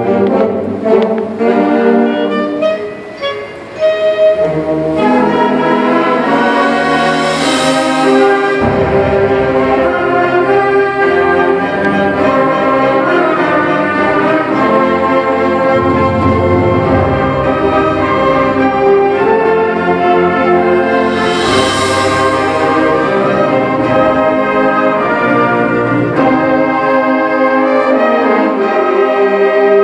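Junior high concert band of flutes, clarinets, brass and percussion playing a piece together. The music dips briefly in loudness a few seconds in, and two bright crashes come about eight and twenty-two seconds in.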